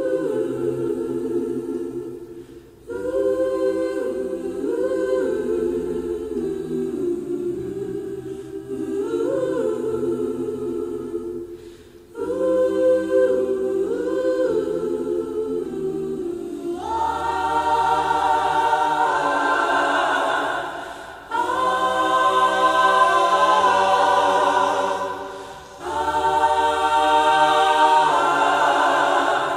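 Background music: choir-like voices singing sustained chords, which grow fuller and brighter about halfway through.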